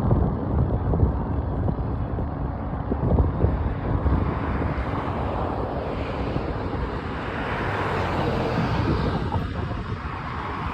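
Union Pacific train getting under way, a steady rumble and rush of rolling equipment that swells about halfway through, under heavy wind buffeting on the microphone.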